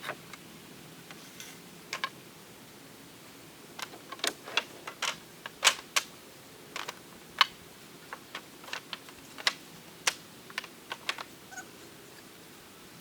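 Lumber boards being handled and clacking against one another: a run of sharp, irregular wooden knocks, thickest in the middle and thinning out near the end.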